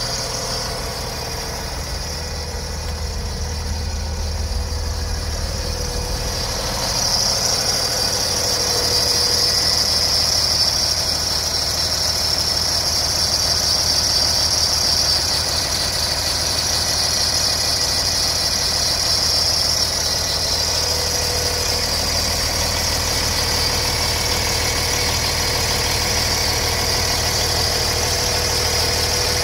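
A 2009 Peterbilt's Cummins ISX six-cylinder diesel idling steadily, heard close up in the open engine bay, with a high whine that grows louder about seven seconds in.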